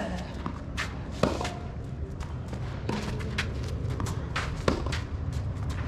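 Tennis rally: racket strikes on the ball every second or two, the loudest about a second in and again near the end. Quick footsteps scuff on the clay court between the shots.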